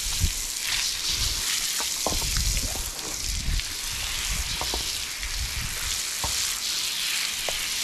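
Water jetting from a pistol-grip garden hose spray nozzle onto a horse's wet coat, a steady hiss with uneven splashing.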